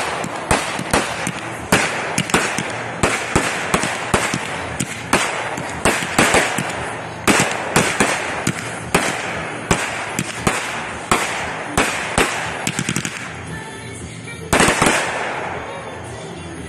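Fireworks going off in a rapid run of bangs and crackles, two or three a second, as aerial shots burst overhead. Near the end comes one louder, longer burst, and then the bangs thin out.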